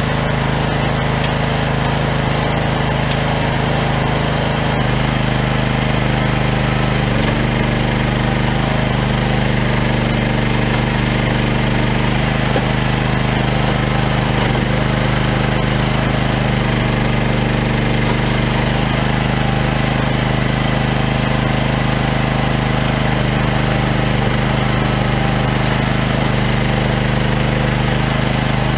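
Regon R1 firewood processor running steadily as logs are cut and split, its engine note shifting several times as the machine works under load.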